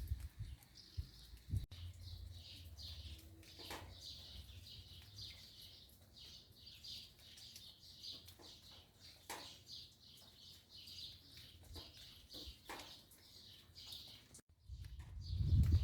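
Rain dripping and pattering on garden leaves, with small birds chirping in quick repeated high notes throughout. A louder low rumble comes in near the end.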